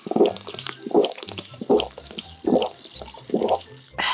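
A person gulping soda from a can in steady swallows, about one every 0.8 seconds, then a breathy exhale near the end as the can comes away from the mouth.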